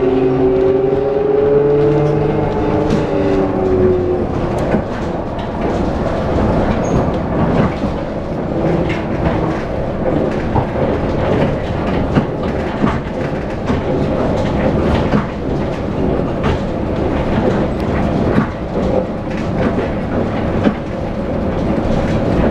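Ride noise inside a Translohr rubber-tyred guided tram under way: a steady rumble with scattered clicks and rattles. In the first few seconds an electric motor whine rises and then falls away.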